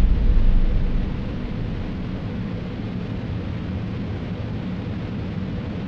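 Rocket-launch rumble following an ignition countdown: a deep, noisy rumble that eases off over the first second or so, then holds steady and low.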